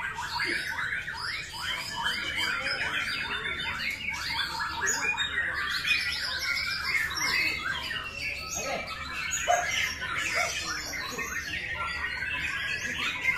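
White-rumped shama (murai batu) singing: a dense, continuous stream of rapid, overlapping chirps and whistles.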